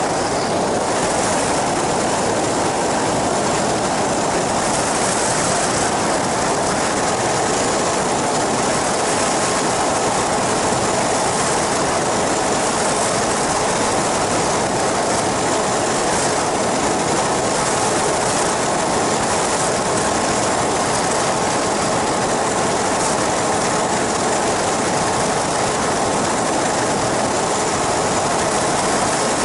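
Steady drone of an ultralight flying boat's pusher engine and propeller in flight, mixed with rushing wind.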